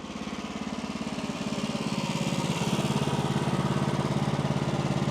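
Small engine of a portable sawmill running steadily with an even pulsing beat, growing somewhat louder over the first couple of seconds.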